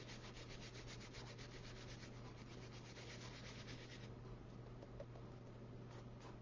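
A small stiff brush scrubbing quickly over gold leaf flakes glued onto a paper card, scratching off the loose surplus. Faint, rapid, rhythmic scratching strokes that weaken about four seconds in.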